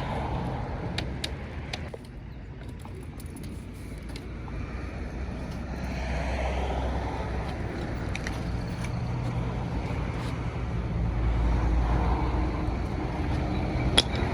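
A car on the move: steady low engine and road rumble that grows louder near the end, with a few faint clicks and one sharp click just before the end.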